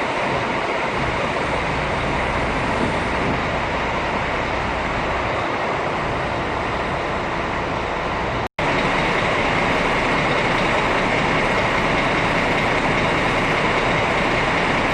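Steady mechanical running noise with a low hum, broken by a sudden cut a little past halfway, after which a similar steady noise carries on.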